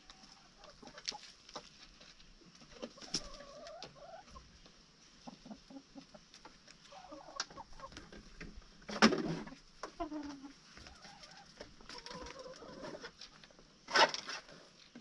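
Chickens clucking in short, scattered calls, with small clicks throughout and two louder sudden sounds in the second half.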